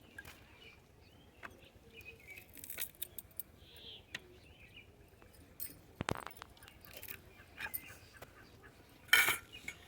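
Scattered light clicks and knocks of kitchen utensils being handled, with one louder sharp knock about six seconds in and a short rustle near the end.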